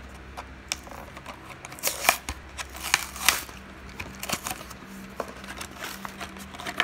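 A toy car's plastic blister pack and cardboard backing card being torn open by hand: a run of irregular crinkling and ripping sounds, loudest about two to three and a half seconds in.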